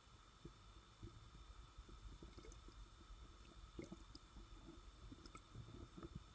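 Very faint underwater sound picked up by a submerged camera: scattered soft, low pops and thuds at an uneven pace, with a faint steady high hum underneath.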